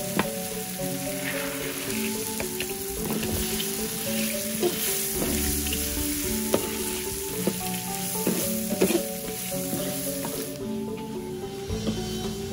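Spice paste and petai cina seeds sizzling as they fry in a wok, stirred with a metal spatula that scrapes and knocks sharply against the pan several times. Soft background music with a melody plays underneath.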